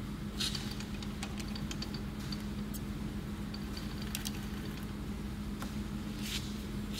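Centre lathe running with a steady hum, with scattered light metallic clicks and clinks, a cluster of them about half a second in and more around four and six seconds in.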